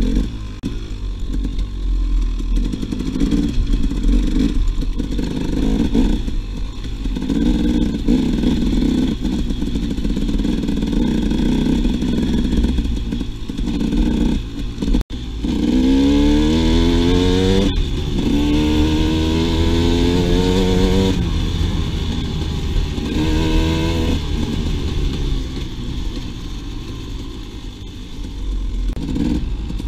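2008 KTM 300 XC single-cylinder two-stroke engine running under load as the dirt bike is ridden cross-country. The pitch climbs and falls with the throttle and gear changes, with several rising revs in the second half.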